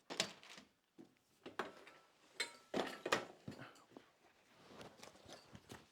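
Short clicks and knocks of bike-trailer parts being handled and twisted into place by hand, a few sharper ones scattered through the first half.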